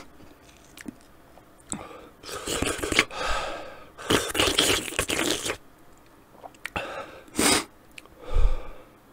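A man breathing out hard through his open mouth close to the microphone, in two long breaths, with a few small wet clicks and crunches around them.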